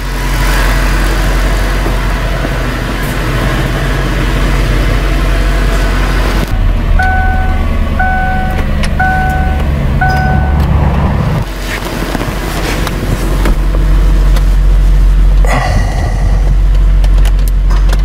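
2003 Ford Thunderbird's 3.9-litre V8 idling steadily while the intermittent drive-by-wire throttle fault has not yet set in. Midway, an electronic chime beeps four times, about a second apart.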